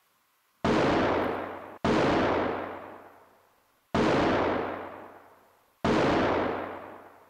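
Four gunshots from a hunting gun: the second about a second after the first, then two more about two seconds apart. Each shot is a sharp crack trailing off in a long echo.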